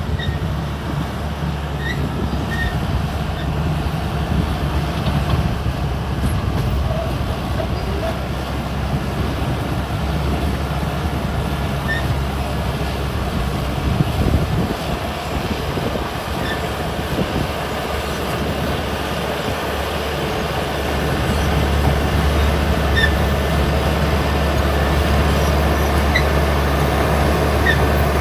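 Caterpillar D6R XL bulldozer working: its diesel engine runs steadily under load with the clatter of its steel tracks and short faint squeaks here and there. It gets louder about three quarters of the way through.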